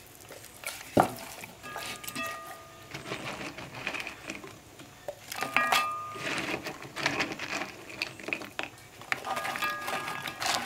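Hands stuffing a raw chicken with bread cubes and dropping the extra cubes into a cast-iron pot: soft wet handling of the skin and meat with irregular taps and knocks, the sharpest about a second in.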